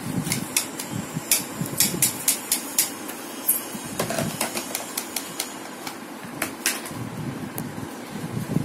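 Hard plastic clicks and knocks from a toy kitchen set being handled, coming irregularly, mostly in the first three and a half seconds with two more about six and a half seconds in, over a steady low hum.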